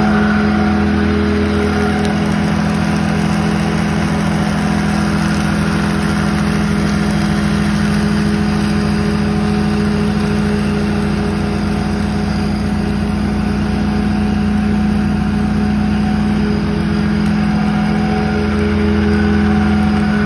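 Walker MTGHS riding mower's Kohler engine running steadily at mowing speed, with the deck blades and grass-handling blower turning as it cuts and bags grass and leaves. The engine note shifts a little near the end.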